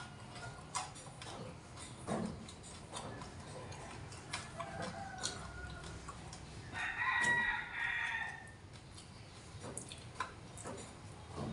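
A rooster crows once, about seven seconds in, the loudest sound here, with scattered light clicks around it.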